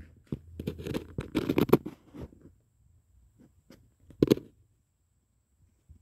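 Footsteps crunching and scraping over litter and plastic bottles on a debris-strewn floor, a quick run of crackles for about two seconds, then quiet with one more short crunch about four seconds in.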